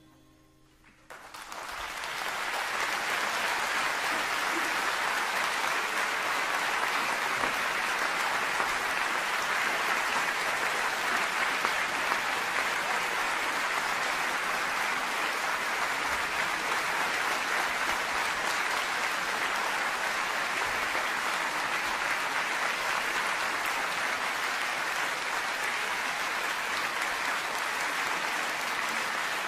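Concert audience applauding, swelling up about a second in after a brief hush and then going on steadily.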